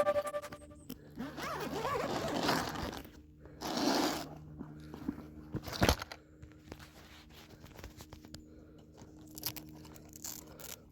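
Intermittent handling noises: rustling and crackly tearing sounds around two and four seconds in, a sharp knock near six seconds, then scattered small clicks.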